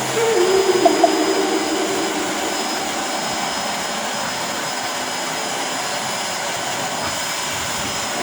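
Vacuum cleaner running steadily, a continuous even rushing whoosh.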